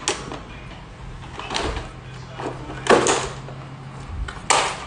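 Hollow knocks and clatter of plastic ride-on toy trucks bumping together on a tile floor: several separate knocks, the loudest about three seconds in, over a steady low hum.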